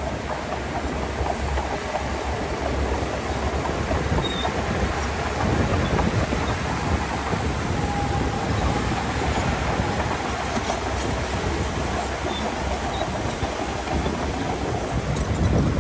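Heavy earthmoving machinery running: a steady engine rumble with continuous rattling and clatter.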